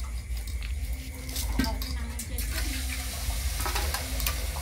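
A large dog eating wet food from a steel bowl: wet chewing and lapping, with many small clicks of teeth and muzzle against the bowl. A short pitched sound comes about one and a half seconds in.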